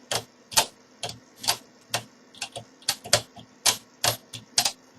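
Sharp metallic clicks, about two to three a second at uneven spacing, from a lever pick and overlifting wire working the levers inside a 5-lever mortice lock.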